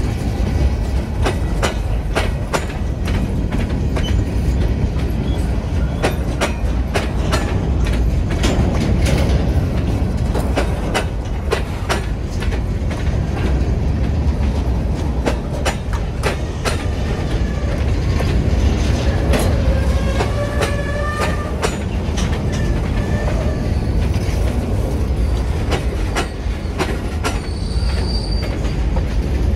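Wood-chip hopper cars of a freight train rolling past, a steady low rumble with wheels clicking and clanking irregularly. Brief wheel squeals come about two-thirds of the way through, and a short, higher squeal comes near the end.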